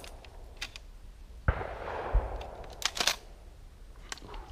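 A shotgun shot about a second and a half in, its report echoing away over about a second, followed by a low thump. Sharp metallic clicks near the start and around three seconds in, from a shotgun's action being worked to clear a jam.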